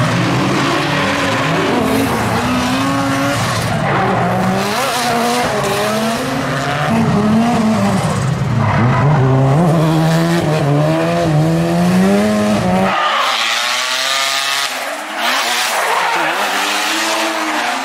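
Mazda RX-7 FD drift cars' twin-rotor rotary engines revving up and down through a drift, with tyres squealing and skidding. The sound changes abruptly about thirteen seconds in to a thinner, higher engine note.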